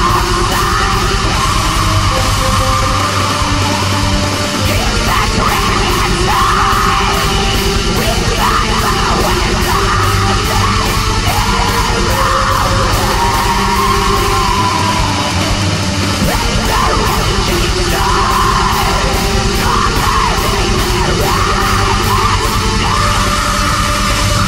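Black metal song: a dense, loud wall of distorted guitars over rapid drumming, with harsh screamed vocals.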